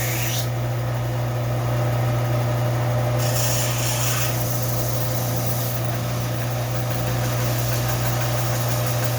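Steel adze blade rubbed against an abrasive (sandpaper or sharpening stone) to scour off rust, a dry scraping hiss that comes and goes, over a steady low hum.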